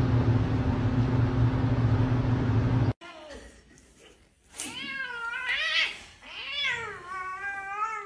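A steady low hum that cuts off abruptly about three seconds in. Then a domestic cat gives three long, drawn-out meows, each wavering up and down in pitch.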